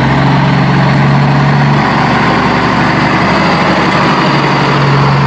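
Truck engine idling, a loud steady low hum. From about two seconds in it turns into a rapid chugging, then settles back into the steady hum near the end.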